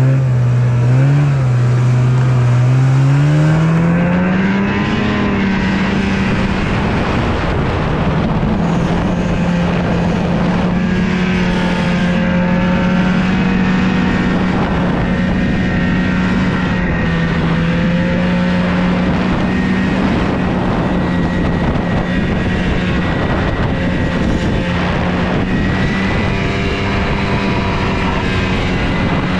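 Snowmobile engine running just after starting. Its speed climbs a few seconds in, then holds nearly steady with small wavers.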